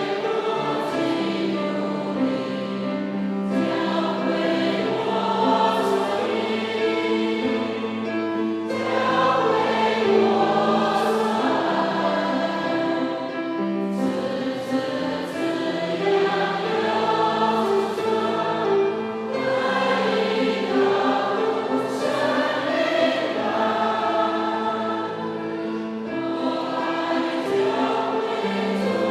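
Choir singing a hymn in parts, held notes moving in slow phrases.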